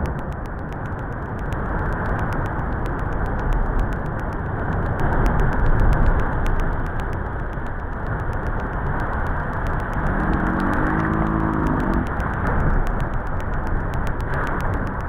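High-tide sea water surging through a narrow rock trench and forced up in a spout of spray: a loud rush of water with a deep low rumble that swells and peaks about five to six seconds in.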